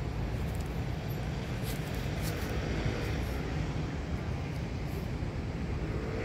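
Steady low rumble of street ambience, like distant traffic, with no distinct events standing out.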